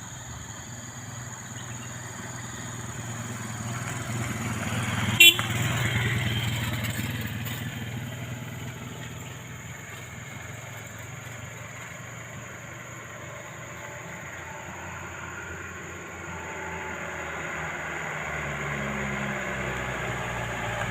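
Motor vehicle engine running steadily, swelling about five seconds in and again near the end, with one sharp, loud click about five seconds in.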